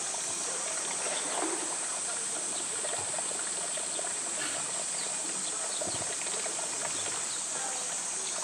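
Steady high-pitched drone of cicadas in summer, with water sloshing and lapping as a polar bear swims in a pool.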